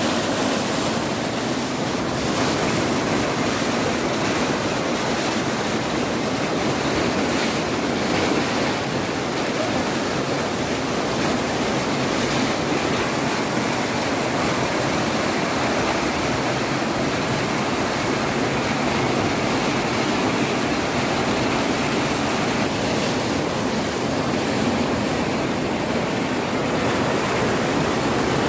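Floodwater rushing in a steady, loud flow of noise that does not let up.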